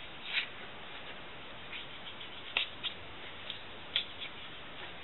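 A few short scratches and clicks of hands handling materials at a work bench: one near the start, two close together about two and a half seconds in, and one about four seconds in, over a steady faint hiss.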